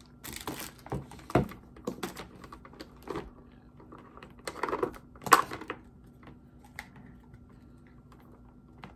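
Irregular clicks, taps and rustles of tangled printer cords and a plastic power adapter being handled and untangled, with sharper knocks about a second and a half in and around the middle.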